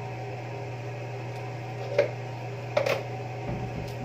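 Pot of pork broth boiling on a stovetop over a steady low hum. There is one sharp knock about two seconds in and a short clatter of knocks just under a second later.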